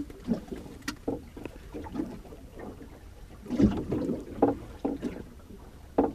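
Scattered knocks and clunks around a small boat, the loudest a little past halfway through.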